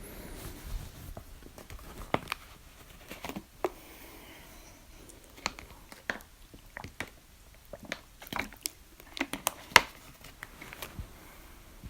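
A person hiccuping: several sharp hics at irregular intervals, the loudest about ten seconds in, with smaller clicks between them.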